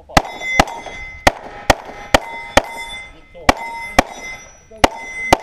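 Semi-automatic pistol firing about ten quick shots in a string, mostly in pairs, with steel targets ringing after the hits.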